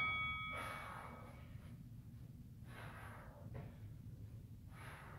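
A woman's breathing under exertion: about four breathy exhales spread across a few seconds as she swings a dumbbell through wood chops.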